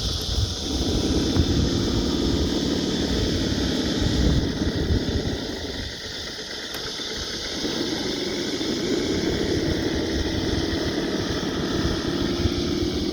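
RC rock crawler's electric motor and gearing whining as it climbs, a steady whine that runs for a few seconds, drops out around four seconds in and picks up again about eight seconds in as the throttle is worked, over a rough low rumble.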